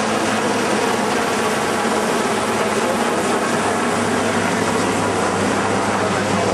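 Sikorsky S-61-type twin-turbine helicopter flying overhead: a steady, even rotor and turbine noise with a low hum.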